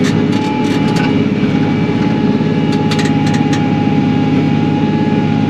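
Kioti NS6010 compact tractor's diesel engine running steadily, with a thin steady whine above it.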